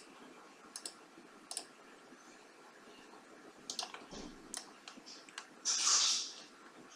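Computer mouse clicks, a scattered handful spread over several seconds, as points are picked on screen. A short soft hiss near the end is the loudest sound.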